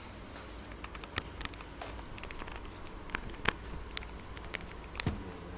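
Handling noise from a camera phone being moved about: scattered light clicks and knocks, the sharpest about three and a half seconds in and a duller knock about five seconds in.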